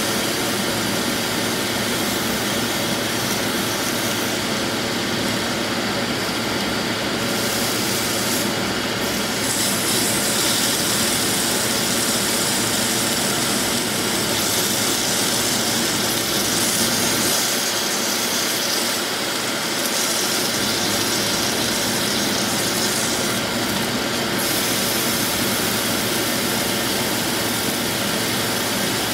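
Double-bone lamb chop searing in hot olive oil in a skillet: a steady, loud sizzle whose high hiss brightens and dims at times.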